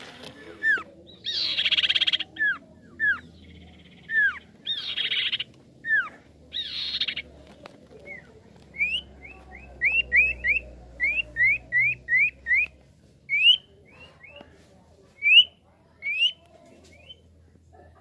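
A caged sirtu (green iora) calling in short rising chirps, with a quick run of them at about three a second in the middle. Three short hissing, buzzy bursts come in the first seven seconds.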